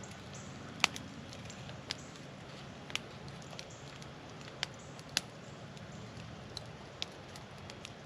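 Campfire burning with about seven sharp, irregularly spaced pops and crackles over a steady background noise.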